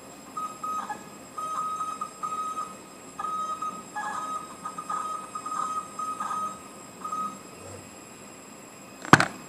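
CNC machine axis drives whining in short stop-start moves, each a high whine a fraction of a second long. A single sharp loud click comes near the end.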